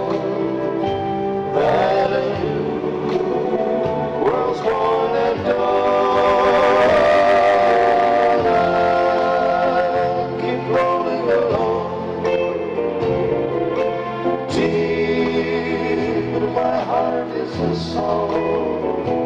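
Live western group harmony singing: several men's voices in close harmony over strummed guitars and a low bass line, swelling on a long held chord about halfway through.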